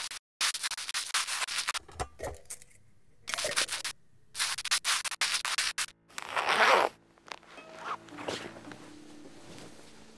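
A string of short, close-up rubbing and scraping noises, with a zipper drawn about six seconds in as the loudest of them. From about eight seconds, soft music with low held notes comes in.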